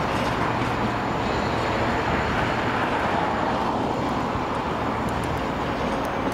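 Loaded ore train of box wagons, hauled by an Irish Rail 071 class diesel locomotive, rolling away: a steady rumble of wheels on the rails with the locomotive working at its head.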